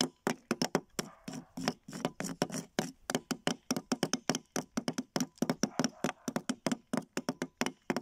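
Two small hammers knocking on a plaster fossil-excavation block, chipping it away in a quick, irregular patter of several strikes a second.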